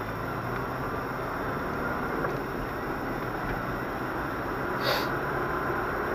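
A car driving at town speed, heard from inside the cabin: a steady rumble of engine and tyre noise, with one short sharp click about five seconds in.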